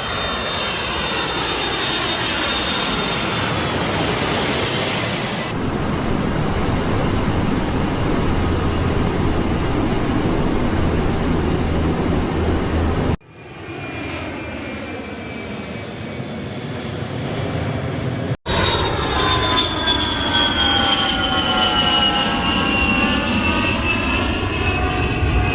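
Airplane engine noise passing by, with a high whine that slowly falls in pitch. It is broken by two abrupt cuts, about halfway through and again about 18 seconds in.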